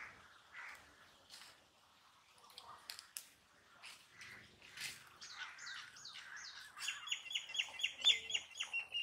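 Birds chirping: a few slurred falling notes, then near the end a fast run of sharp repeated chirps, about five a second. Faint scattered clicks lie underneath.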